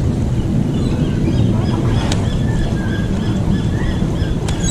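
Wind buffeting the microphone while a baitcasting reel is cranked in steadily. Over it runs a string of short high chirps, about three a second.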